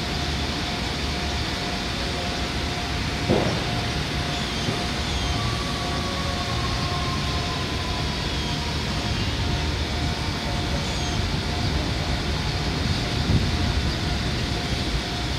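Steady low rumble of a distant New York subway train on the elevated line, with a faint steady whine, a faint tone sliding slowly downward in the middle, and a single sharp click about three seconds in.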